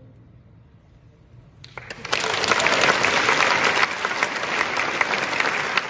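The last held chord of a wordless Appenzell yodel (Zäuerli) fades out, followed by a short hush. Then the audience breaks into loud, sustained applause a little under two seconds in.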